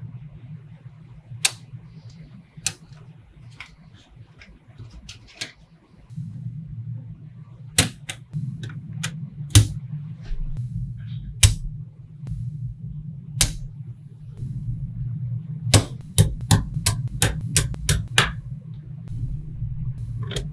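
Small magnetic balls clicking sharply as they snap onto one another one by one, at irregular gaps that get shorter and come in quick runs in the second half, over a low steady hum.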